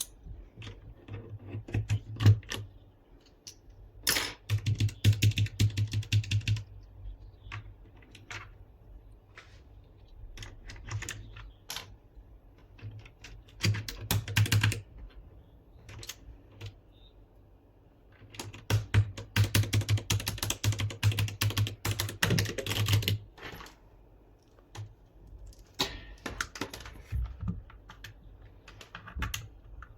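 Typing on an MK-Star61 mechanical keyboard: several runs of fast keystrokes with scattered single key presses between them.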